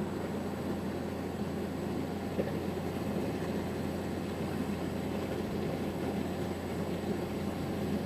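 Heavy machinery engine running with a steady low drone.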